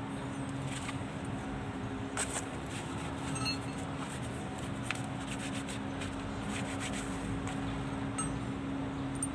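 A steady hum with a few light metallic clinks scattered through it.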